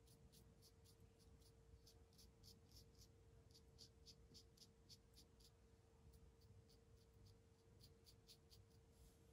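Near silence: faint room tone with a low steady hum and a faint, even run of high ticks, about three a second.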